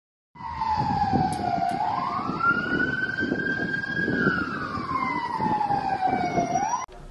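Emergency vehicle siren wailing in a slow sweep: falling, rising, falling again and starting to rise, over low rumbling noise. It starts about half a second in and cuts off suddenly near the end.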